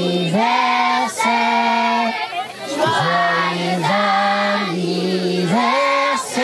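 A group of voices singing together in long held notes, each lasting a second or more, with brief breaks between them.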